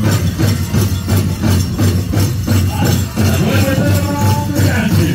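Powwow drum group: a large drum struck in a steady, even beat, with singers' voices over it.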